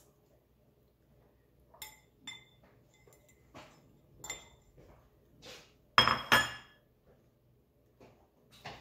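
A metal fork clinking against a ceramic bowl while food is picked up and twirled: several light clinks with a short ring over the first few seconds, then two louder, noisier sounds about six seconds in.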